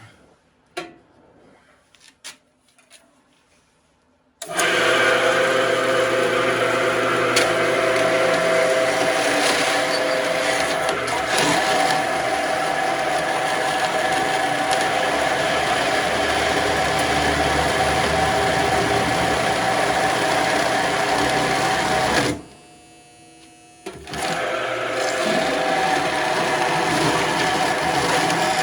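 Horizontal metal-cutting band saw starting up about four seconds in, after a few light clicks, then running steadily with a held whine as it cuts through a plastic handheld vacuum. The sound drops away for a second or two near the end, then comes back.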